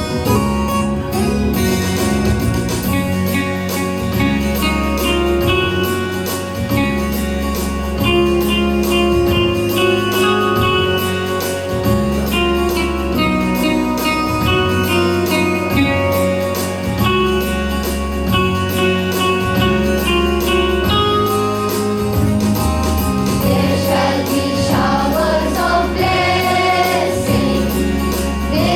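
A choir singing a morning prayer hymn over instrumental accompaniment with a steady beat. The voices come in clearly near the end.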